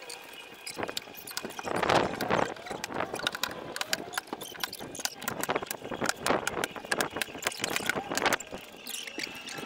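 Hand stapler driving staples through shower-curtain fabric into wooden garage doors: a run of sharp clacks at uneven intervals, the loudest about two seconds in.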